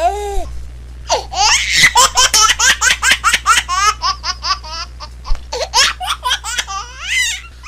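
A small child laughing hard in a long run of quick, high-pitched bursts, several a second.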